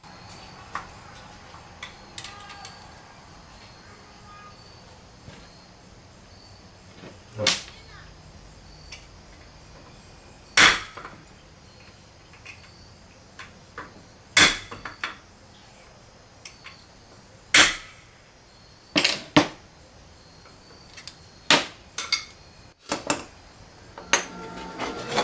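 About eight sharp knocks and clanks at irregular intervals, a few seconds apart, as metal parts are handled and set down at the workbench. A small motor starts running near the end.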